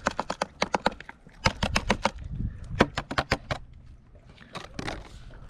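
A hungry cat crunching dry cat food: a quick run of sharp crunches, several a second, that thins out about three and a half seconds in, with a few more near the end.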